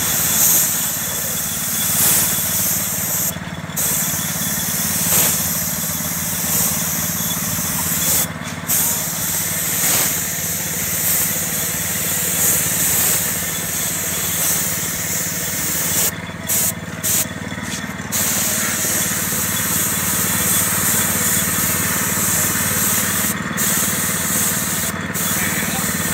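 Gravity-feed paint spray gun hissing as it lays a colour coat on a car door. The hiss cuts out briefly several times, over a steady low hum.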